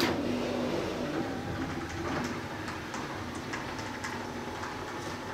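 Electric garage door opener running as the door travels, starting with a sudden clunk, then a steady low hum with scattered light clicks.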